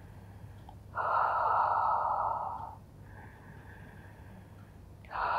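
A woman breathing audibly in time with a Pilates movement: a long, loud breath out through the mouth about a second in, a quieter breath in, then another loud breath out starting near the end.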